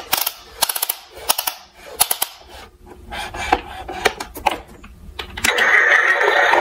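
Sharp plastic clicks and clatters from a toy Tonka fire truck being handled, its ladder clicking in quick runs as it is swung. About five and a half seconds in, a louder continuous sound takes over.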